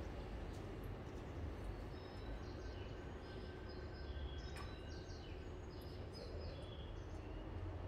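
Railway platform ambience: a steady low rumble, with a scatter of short high bird chirps from about two seconds in and a single sharp click about halfway through.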